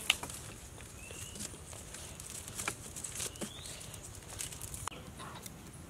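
Soft rustling and small clicks of plant-fibre cord being wrapped and knotted around the wooden sticks of a frame, over a steady high-pitched hiss that stops about five seconds in. Two short rising chirps come about one and a half and three seconds in.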